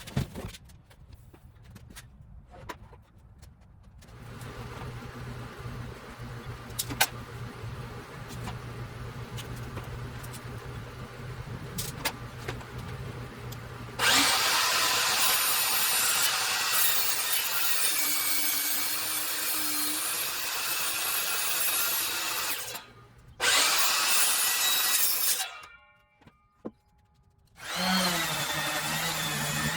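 Power saw cutting through wooden lumber: a quieter stretch first, then loud cutting from about halfway in, broken by two short pauses near the end.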